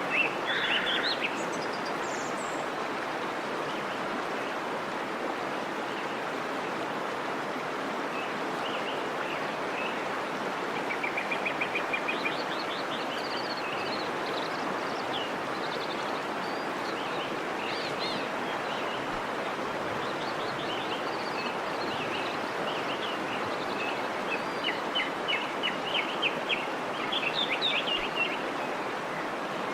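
Birds chirping and trilling now and then over a steady rushing noise. A quick run of trills comes a little before the middle, and a louder cluster of chirps comes near the end.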